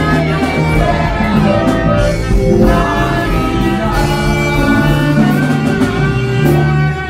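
Two saxophones playing a worship tune live over a sustained bass accompaniment.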